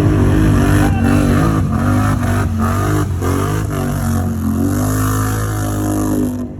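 ATV engine revving hard, its pitch rising and falling over and over, with a few sharp cracks mixed in. The sound cuts off abruptly near the end.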